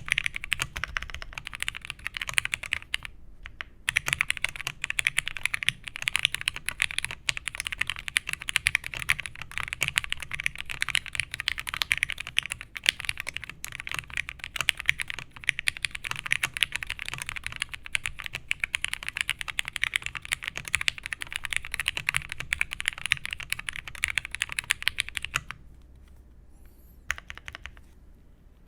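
Fast, continuous typing on a mechanical keyboard with lubed vintage Cherry MX Black linear switches, a polycarbonate half plate and dye-sub Cherry keycaps. There is a brief pause about three seconds in, and the typing stops near the end.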